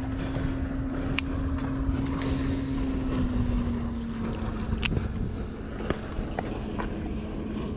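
Motorboat engine running steadily as it passes, its hum sinking slowly in pitch over several seconds. Wind rumbles on the microphone, and there are a few sharp clicks.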